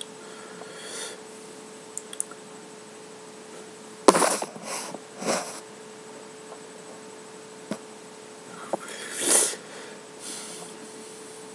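A person sniffing and breathing sharply through the nose: a loud, sudden burst about four seconds in followed by three shorter ones, and another near the end, over a steady faint hum.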